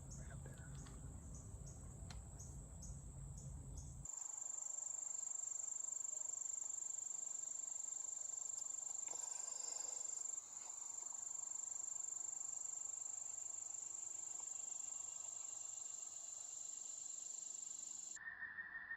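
Insects, crickets, calling in the woods with one steady high-pitched trill. The first few seconds also hold low rumbling noise, and the trill stops abruptly near the end.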